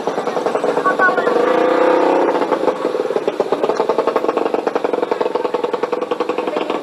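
Motorcycle engine idling with a rapid, even putter, over street voices.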